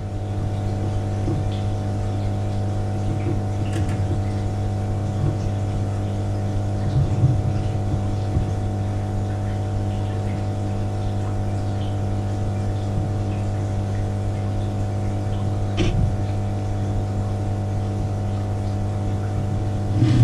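Steady low machine hum with several unchanging tones, from the running pump and plumbing equipment of an aquarium tank. A faint click comes about four seconds in, and a short knock comes near the end.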